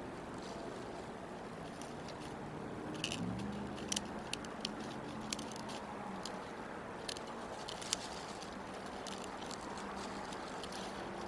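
Sticks and dry nest material in a bald eagle nest crackling and snapping in scattered sharp clicks as the eagles rearrange it, over a steady outdoor wash of noise. A low hum rises about three seconds in and fades a few seconds later.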